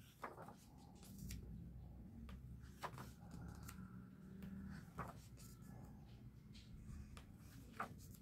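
Pages of a large art book being turned by hand: quiet paper rustling, with a handful of sharp, brief paper snaps as pages flip over and are let go.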